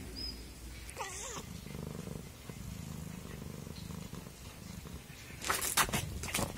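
Domestic cat purring, with a short wavering trill about a second in. Near the end comes a quick run of clicks and clatter as its paw bats a plastic baby pacifier.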